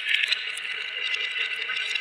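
Marbles rolling and clattering down a marble run track, a continuous dense rattle of small clicks, busiest in the first half-second.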